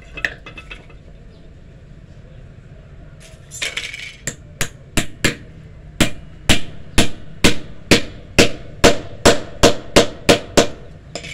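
Small hammer striking the metal-collared end of a wooden knife handle set upright on a wooden block: a few light clinks near the start, then a steady run of about sixteen sharp strikes at roughly two a second, getting louder as it goes.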